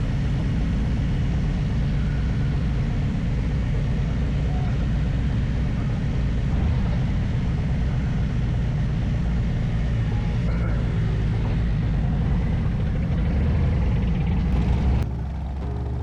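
A motorcycle running down the road, loud and steady. The sound drops suddenly near the end, leaving a lower, steadier hum.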